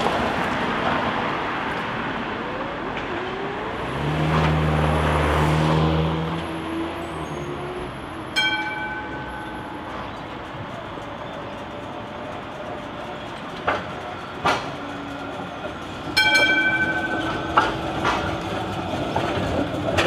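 A2-class tram running over the depot track and points: a steady rumble with a low motor hum swelling a few seconds in. Its warning gong rings twice, once about a third of the way in and again past the middle, each ring dying away over a second or so. Sharp wheel clacks come over the rail joints near the end.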